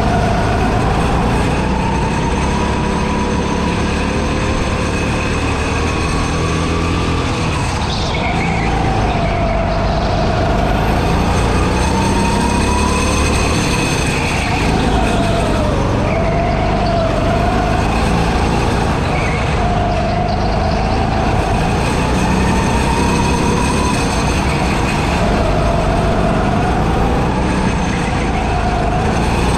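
Go-kart heard onboard at racing speed: a steady low rumble under a whine that climbs as it accelerates and drops sharply as it slows for corners, again and again through the lap.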